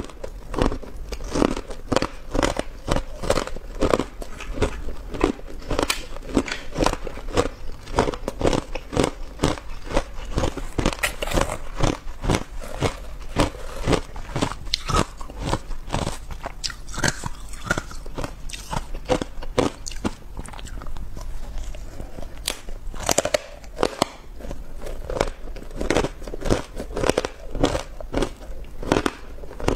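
Close-up crunching and chewing of matcha ice: the ice cracks between the teeth in quick, sharp crunches, several a second, easing off briefly about two-thirds of the way through.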